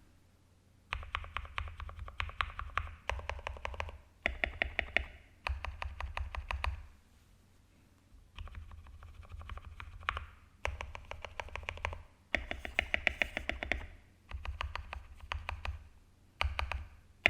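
Stabilized keys on an E-Dra EK384W mechanical keyboard, their stabilizers modded and lubed, pressed rapidly in about nine bursts of quick keystrokes with short pauses between. This is the tuned stabilizer sound, meant to be free of rattle.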